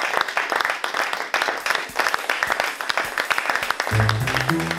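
Small audience applauding, a dense patter of many hands clapping. About four seconds in, music with low bass notes starts under the applause.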